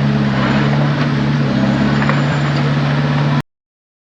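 Heavy diesel engine of earthmoving equipment running steadily at a constant pitch, which cuts off abruptly about three and a half seconds in.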